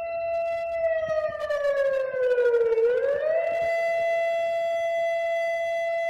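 Emergency alert system siren tone: a steady pitched wail that, about a second in, slides slowly down in pitch, then sweeps quickly back up about halfway through and holds steady again.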